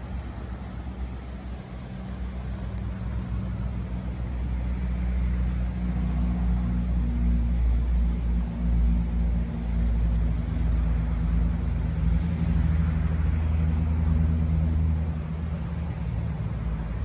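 A motor vehicle's engine running with a low, steady rumble that grows louder over the first several seconds and then holds.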